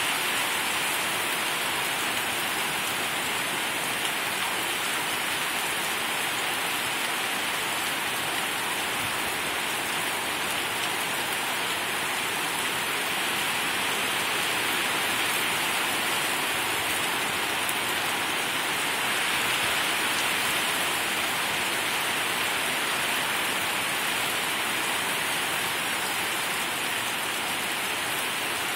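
Heavy rain pouring down steadily on the street and trees, an even hiss that swells slightly about halfway through.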